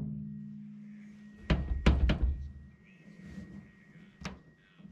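Dull thunks from a 1985 Chevy truck's sheet-metal door skin as a glue-on dent-puller tab is yanked by hand and the panel pops, three or four in quick succession about one and a half seconds in. A low ringing from the panel dies away at the start, and there is a small click near the end.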